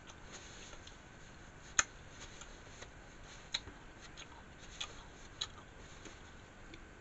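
Paper napkin rustling and crinkling as hands are wiped with it, with a few sharp crackles, the loudest about two seconds in.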